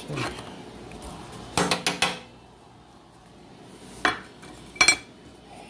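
Kitchen utensils and containers knocking and clinking on the counter: a quick cluster of clatters about a second and a half in, then two sharper clinks near four and five seconds, the second with a short ring.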